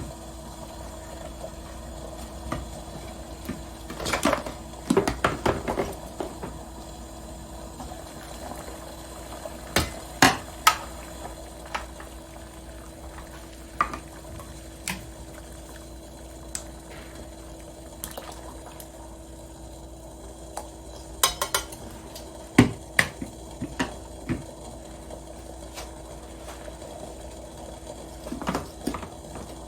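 A pot of soup simmering on the stove under a faint steady hum, with clinks and clatters of utensils and cookware in short clusters several times.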